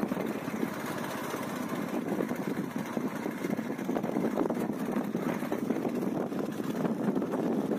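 A small engine running steadily at low speed.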